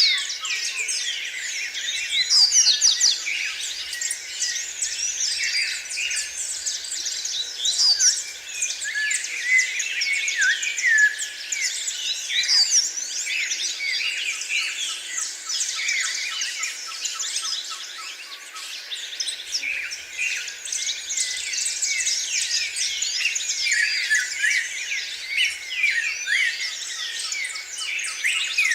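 Many songbirds chirping and singing at once, a dense, continuous chorus of quick high chirps and trills.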